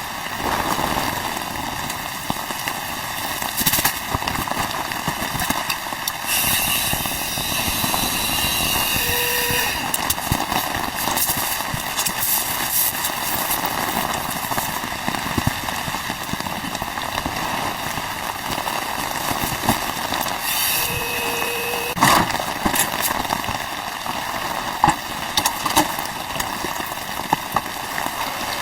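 Rain pattering steadily on the fabric of an inflatable tent, with scattered irregular ticks and knocks.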